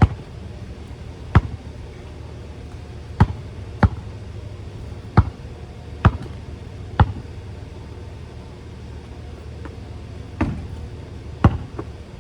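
Basketball bouncing on a hard court: about nine separate sharp bounces at uneven intervals, over a steady low rumble in the background.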